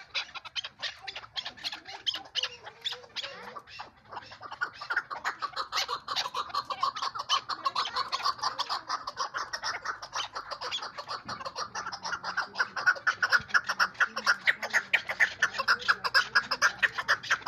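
Chukar partridge calling: a fast, unbroken run of short repeated chuck notes that grows louder about two-thirds of the way through.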